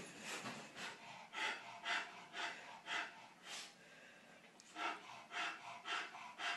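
Bull terrier breathing hard in short rhythmic puffs, about two a second, with a pause of about a second midway.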